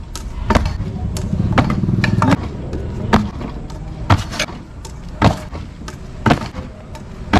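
Stunt kick scooter clacking on concrete during finger whip attempts: about eight sharp, uneven knocks of the deck and wheels landing and slapping down, with the rumble of small hard wheels rolling on rough concrete between them.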